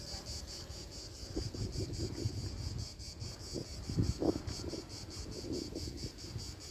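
Insects chirping steadily, a high pulsing trill about five times a second, over a low rumble of wind and handling noise on a phone microphone, with a few soft thumps about four seconds in.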